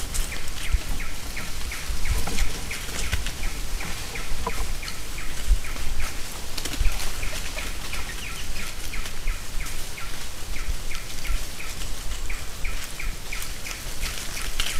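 Forest ambience: a short high chirp repeated steadily, about three times a second, over scattered crackling rustles of dry leaf litter as pig-tailed macaques move about close by.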